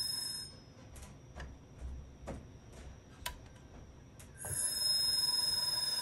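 Open IBM XT 10 MB hard drive: the whine of its spindle motor and bearings cuts out about half a second in. A series of sharp clicks follows, roughly two a second, while the platter is kickstarted by hand. Near the end a thump comes and the whine returns as the drive spins up again.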